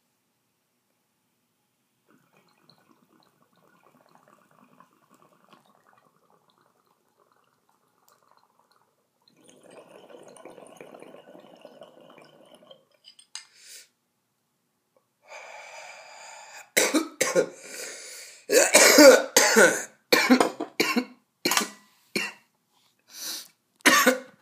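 Water bubbling faintly through a double-chamber percolator bong as a hit is drawn, then a run of about ten loud coughs from the smoke.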